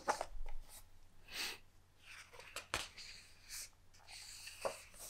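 Faint handling of an open hardback book's paper pages: a few light taps and soft rustles, with a couple of quiet breaths between them.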